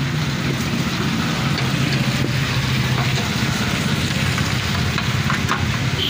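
Steady background hum and hiss, with a few light clicks as wire connectors are pushed onto a component's terminals inside an opened microwave oven.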